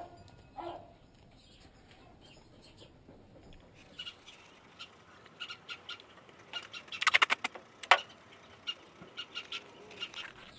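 Duct tape pulled off the roll in a quick crackling rip about seven seconds in, with scattered short bird chirps around it.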